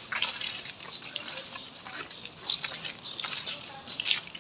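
Footsteps crunching on loose gravel, about two steps a second.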